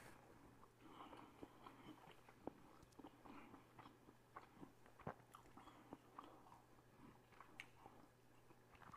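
Faint chewing of a mouthful of bread sandwich, with many small scattered mouth clicks.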